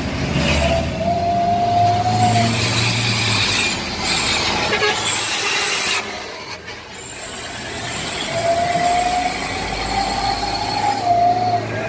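Two long vehicle horn blasts, each about three seconds, the first starting near the beginning and the second about eight seconds in. Each holds one pitch that rises slightly at its start and dips at its end, over a low engine hum.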